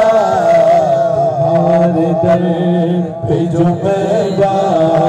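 A man's voice humming a naat melody without words, holding long, wavering notes.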